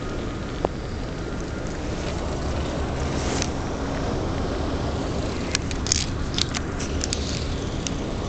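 A steady low engine rumble, with a few sharp clicks a little over halfway in.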